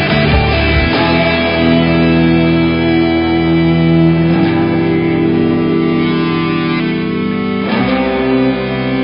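Background music led by electric guitar, with sustained chords that change about a second in, again about halfway, and near the end.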